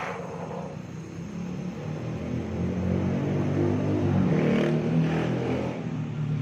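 A motor vehicle engine running, growing louder from about two seconds in, over a steady hiss.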